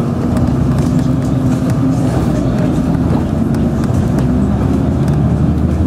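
Bus engine running and road noise heard from inside the moving bus, a steady low rumble.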